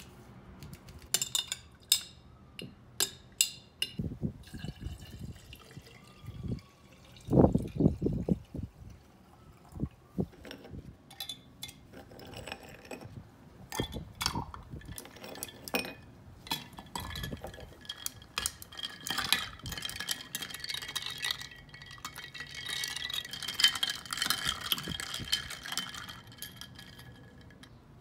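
Kitchen sounds: a run of sharp clinks and taps of dishware, with a few low thumps about eight seconds in. Near the end comes a stretch of liquid pouring into a container.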